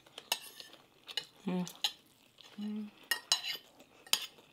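Metal spoons and forks clinking and scraping against ceramic plates and glass bowls during a meal, a scatter of sharp light clicks. Twice, about a second and a half in and near the three-second mark, a short hummed voice sound.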